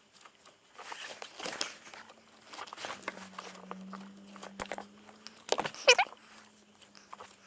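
Wire strippers working on thin CAN harness wires: a string of small irregular clicks and snips, with gloved hands rustling the wires. A short wavering squeak about six seconds in is the loudest sound.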